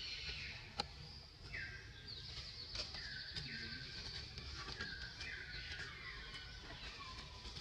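Outdoor tree-canopy ambience: repeated high-pitched chirping calls that step down in pitch, over a low rumble, with a few sharp clicks.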